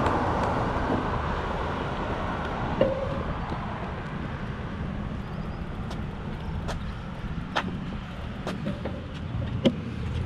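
A car passing on the road and fading away, over the steady low rumble of kick scooter wheels rolling on pavement. Several short sharp clicks come through in the second half.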